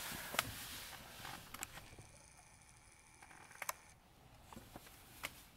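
Camera lens zoom motor giving a faint steady whine for about two seconds while the shot zooms in, among a few soft clicks of the camera being handled and a light hiss at the start.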